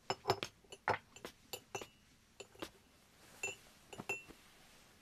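Porcelain tableware clinking: a spoon tapping and scraping against a bowl of bird's nest soup, about a dozen soft, irregular clinks, some ringing briefly.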